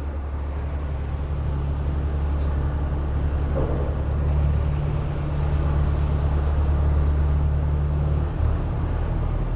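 Narrowboat diesel engines running steadily as two boats pass in a canal tunnel, a deep even drone that swells a little midway and changes note near the end.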